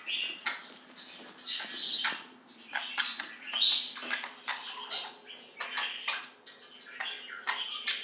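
Budgerigars warbling and chattering: a rapid stream of clicks, chirps and squeaks.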